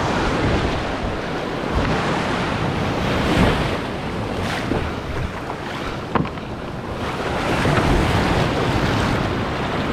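Heavy shore-break surf crashing and whitewash rushing, with wind buffeting an action camera's microphone. The rush swells as waves come through, loudest about three and a half seconds in and again around eight seconds, with a sharp knock about six seconds in.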